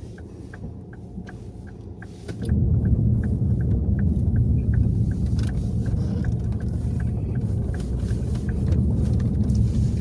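Car engine and road rumble heard from inside the cabin, stepping up louder about two and a half seconds in and holding steady, with faint regular ticking over it.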